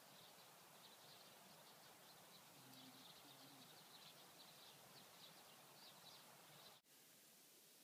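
Near silence: faint outdoor quiet with rapid high chirping through most of it, and a sudden brief dropout near the end.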